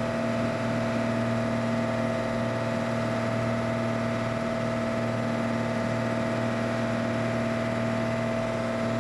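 Steady drone of the boat's onboard machinery running: a low hum with a steady higher-pitched tone over it, unchanging throughout.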